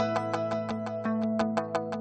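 Background music: sustained chords under a quick run of evenly spaced plucked notes.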